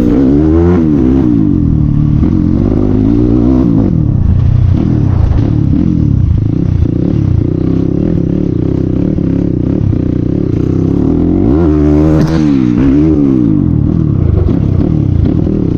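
CX250R motorcycle riding with its dB killer removed, the open exhaust running loud. The revs rise and fall several times, with the biggest swell about twelve seconds in.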